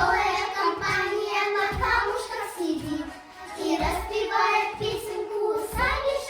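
A child singing a song over musical accompaniment with a regular low beat.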